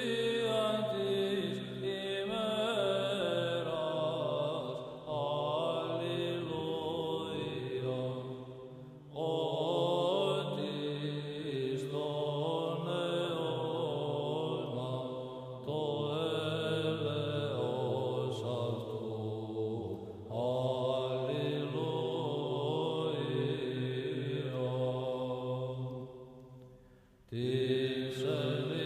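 Slow vocal chant with long held notes over a low sustained drone, sung in phrases of several seconds with brief breaks between them and a longer pause near the end.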